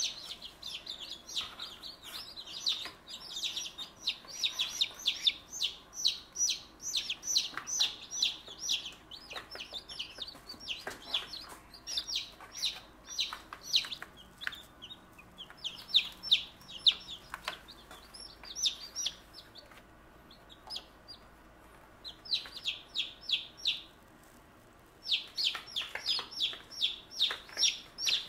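Newly hatched chicks peeping in a brooder: rapid runs of short, high-pitched peeps, easing off for a few seconds around twenty seconds in before starting up again.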